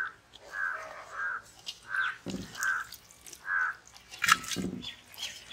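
A crow cawing about six times at a steady pace. Between the caws come a few short thumps, from raw chicken pieces being tipped from a metal bowl into a metal pot.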